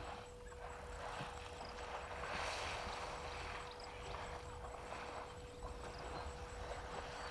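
Outdoor wind noise swelling and easing in gusts every second or two, over a steady faint hum.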